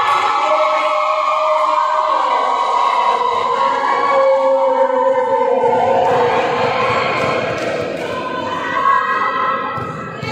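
Crowd of voices singing or chanting together in long held notes that step up and down in pitch, over general crowd noise.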